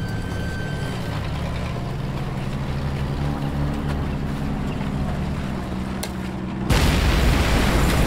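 A low steady drone, then, about two-thirds of the way in, a barrel-laden truck blows up: a sudden loud explosion that goes on rumbling.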